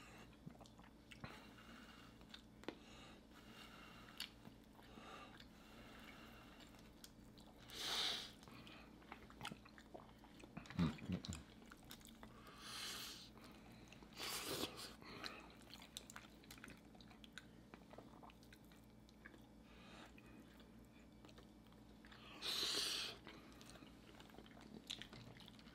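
Close-miked chewing and mouth sounds of people eating turkey wings and cheesy casserole, mostly quiet, with a few short louder bursts of eating noise about 8, 14 and 23 seconds in.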